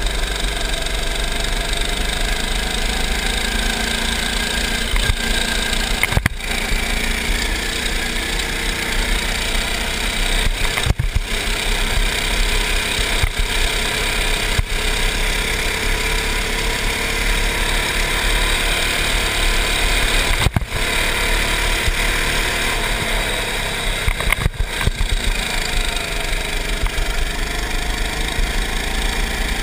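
Go-kart's small petrol engine running as the kart drives round the track, its pitch rising and falling with the throttle, heard from onboard with a heavy constant rumble. A few brief jolts break the sound now and then.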